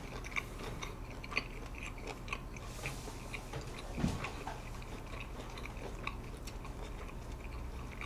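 A person chewing a mouthful of food with mouth closed: quiet, scattered wet clicks and smacks, over a faint steady low hum.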